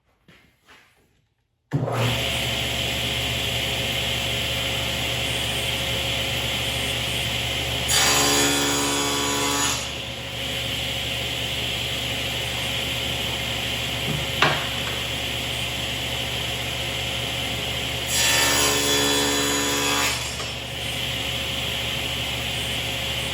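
Table saw switched on about two seconds in and running at steady speed with a constant whine. It cuts through a piece of wood twice, each cut about two seconds long and louder, with a ringing tone over the blade noise; a single sharp click comes between the cuts.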